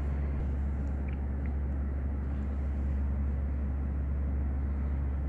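Steady low hum of parking-garage ambience with an even background hiss; no separate events stand out.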